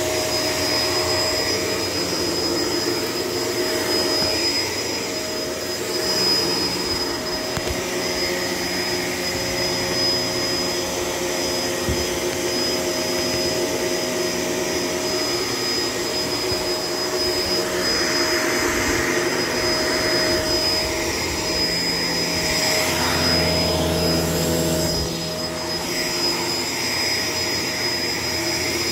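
Shark LA702 Lift-Away vacuum cleaner running steadily as it is worked over the floor, its motor holding a constant high whine. A deeper rumble joins for a couple of seconds late on.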